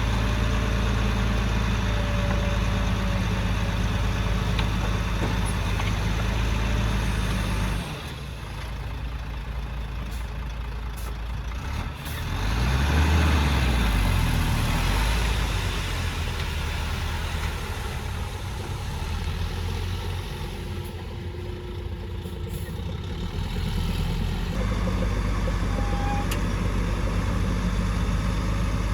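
Diesel engine of heavy construction machinery running steadily; the sound changes abruptly about eight seconds in, the engine revs up and falls back a few seconds later, and the steady running returns near the end.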